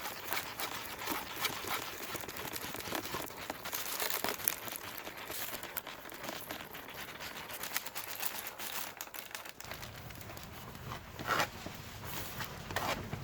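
Irregular crinkling and scratching handling noise, dense with small clicks, with a few louder crackles near the end.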